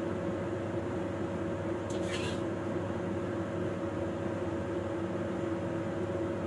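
Steady motor hum with two constant tones, like an appliance fan running, with a short high hiss about two seconds in.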